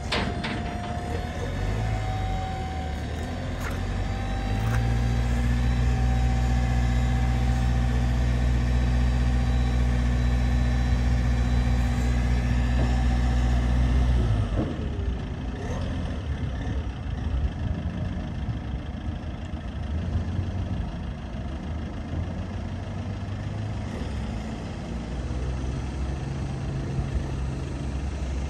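2004 Iveco 35C10 tipper truck's diesel engine idling, then held at raised revs for about ten seconds while the tipper body is hydraulically raised, with a thin steady whine over the engine. About halfway through the revs drop back to idle while the body is lowered.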